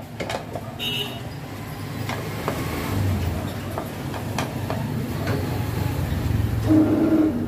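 A motor vehicle's engine rumbles low, swelling about three seconds in and loudest near the end. Scattered light clicks come from a hand tool working the screws of a motorcycle's fuel pump plate.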